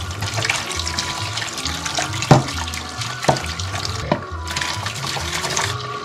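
Kitchen tap running into a sink, the water splashing over a metal fire-stand grill rack and ash pan. Three sharp metal clanks come between about two and four seconds in as the rack is handled.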